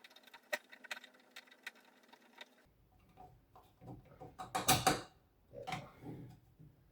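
Hand-fitting hardware while a screw is worked into a fire alarm's back box: a run of small, rapid clicks and ticks, then two louder knocking, scraping handling noises past the halfway point.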